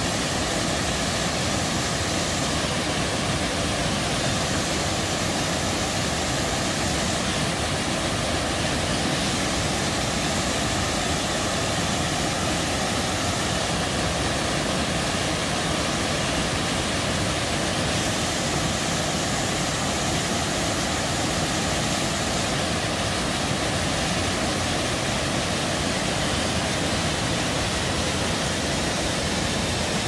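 Waterfall of several cascades pouring into a rock pool: a steady, unbroken rush of falling water.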